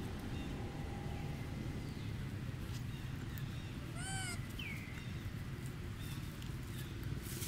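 A single short, arched squeak from a baby long-tailed macaque about four seconds in, over a steady low background rumble, with a few faint short falling chirps.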